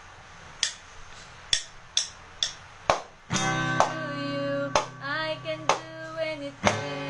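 Drumsticks striking a makeshift drum kit in sharp, uneven hits. About three seconds in, music with a singing voice and plucked-string accompaniment starts, and the hits go on over it.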